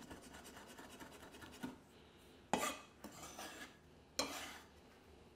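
Cleaver blade scraping across a wooden chopping board to gather finely chopped galangal: a light knock, then two sharp scrapes about a second and a half apart.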